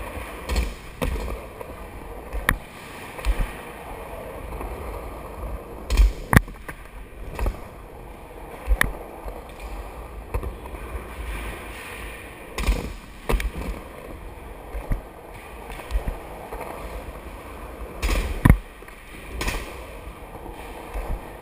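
Skateboard wheels rolling over a concrete skatepark floor, a steady rolling noise, with several sharp clacks as the board hits seams and ramp edges; the loudest clacks come about six seconds in and near the end.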